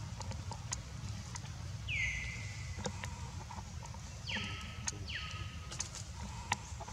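Three high-pitched whistled animal calls: one about two seconds in that drops in pitch and then holds, and two shorter ones about four and a half and five seconds in that fall steeply. Under them runs a low steady rumble, with scattered light clicks.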